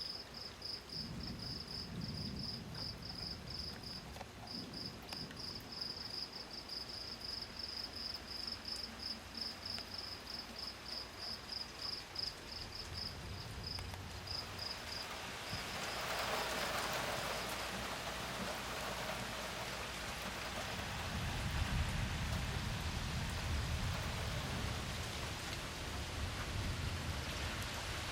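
Thunderstorm rain falling, with insects chirping in a steady rapid high pulse through the first half. The rain grows heavier about halfway through, and low thunder rumbles in the last several seconds.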